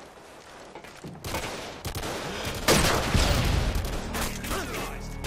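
Video game gunfire from a first-person shooter: rapid shots and bursts of automatic fire, with a loud blast about two and a half seconds in.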